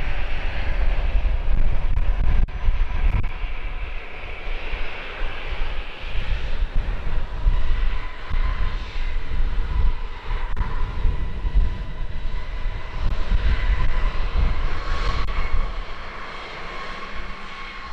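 An airliner's engines with a steady whine, heavily buffeted by gusting wind noise on the microphone.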